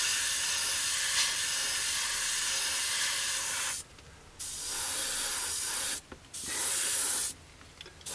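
Gravity-feed airbrush spraying thinned paint: a steady hiss in three runs of one to four seconds, cut off briefly each time the trigger is let go.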